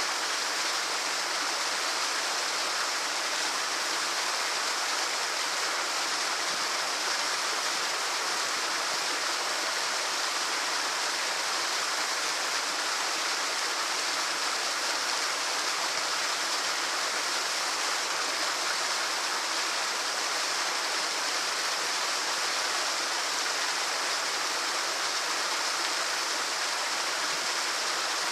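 Small waterfall splashing and rushing steadily, an even hiss of falling water with no breaks.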